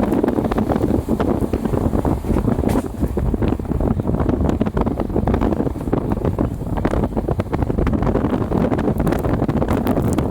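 Indian Railways express train running at full speed: a steady heavy rumble of wheels on the rails, with many quick clicks and rattles, and wind buffeting the microphone.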